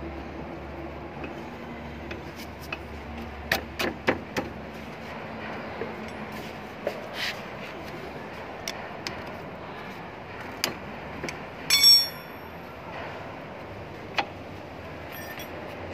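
Scattered light clicks and knocks of metal brake parts being handled at a car's front disc brake caliper and pads. About twelve seconds in, one louder metallic clang rings briefly.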